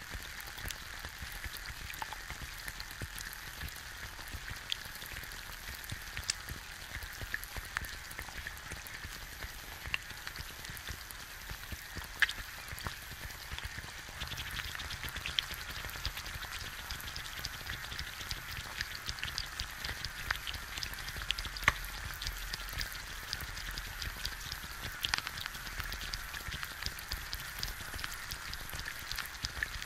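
An egg frying in a pan, heard close up: a steady sizzling hiss with scattered sharp pops and crackles from the bubbling white, the pops coming thicker about halfway through.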